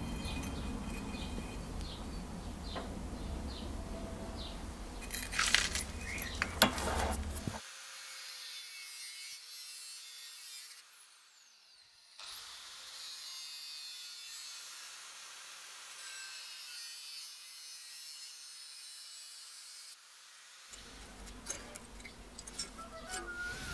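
Metal tube being handled and clamped in a bench vise, with rumbling handling noise and two sharp metal knocks, the loudest sounds. About halfway in, an angle grinder runs with a steady high whine, grinding the steel tube for several seconds; near the end more handling noise and small clicks.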